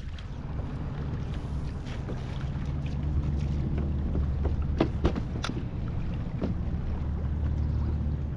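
Fishing kayak's small motor running with a steady low hum over wash and wind noise, with a few sharp clicks about five seconds in.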